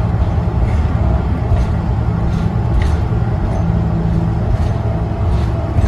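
Inside the cabin of a 2012 New Flyer Xcelsior XD40 diesel city bus under way: its Cummins ISL9 engine and the road noise make a steady low drone, with a few light clicks.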